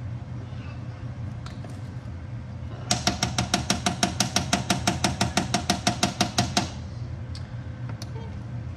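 A utensil knocking rapidly against a pan while ground beef and onions are stirred, about seven strikes a second for nearly four seconds, each with a short ring. A steady low hum runs underneath.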